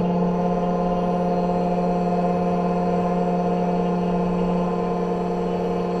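Xtool KNC91 automatic key-cutting machine running steadily, its cutter motor holding one even pitch as it mills a car key blade.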